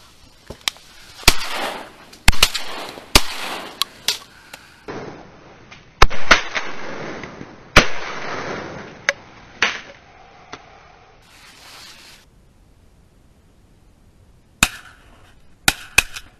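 Several shotgun shots fired at ducks flying overhead, loud sharp bangs each with a short trailing echo. Lighter clicks and knocks come between them, and a few fainter bangs near the end.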